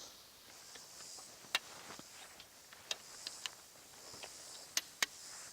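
Plastic tent-body clips snapping onto the tent poles: about six sharp, irregular clicks, two pairs close together around the middle and near the end.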